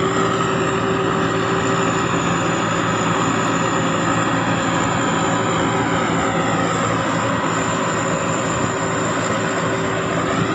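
Sakpattana SS-300 combine harvester running steadily while harvesting, its single-turbo Hino J08C six-cylinder diesel giving a constant high turbo whistle over the engine drone.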